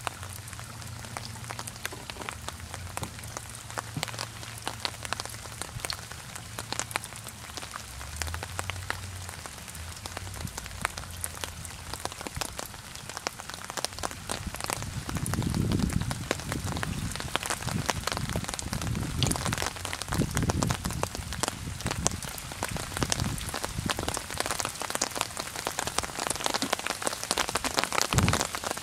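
Rain falling on open lake water: a dense, even patter of drops splashing onto the surface, growing heavier about halfway through, with low rumbling swells in the second half.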